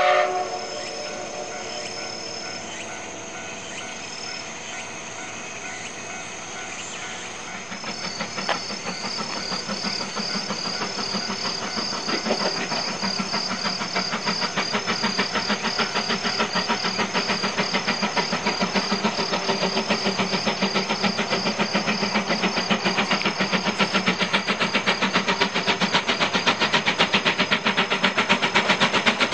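The C11 steam tank locomotive pulling away from a station, its exhaust chuffs starting about eight seconds in and growing quicker and louder as it accelerates and draws near. The tail of a steam-whistle blast ends at the very start.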